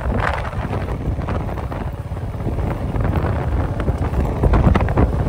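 Wind buffeting the microphone: a heavy, uneven low rumble under a hiss, with a few sharper crackles near the end.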